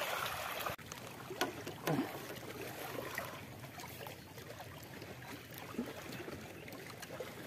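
Small waves lapping and trickling on the lake surface, a soft steady wash, with a few faint knocks and clicks from handling the rods and pole.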